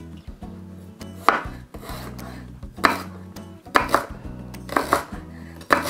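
Chef's knife slicing fresh ginger thinly on a wooden chopping board: a series of irregular cuts, each ending in a sharp knock of the blade on the board, roughly one a second, over soft background music.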